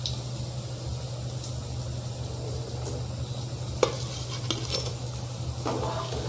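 Besan-battered pumpkin chops sizzling in hot mustard oil in a kadai, with a few sharp clinks of a metal spoon against the pan, the loudest nearly four seconds in.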